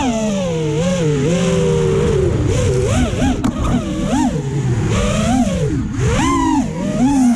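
FPV freestyle quadcopter's brushless motors and propellers whining, the pitch swooping up and down again and again with the throttle, over a steady hiss.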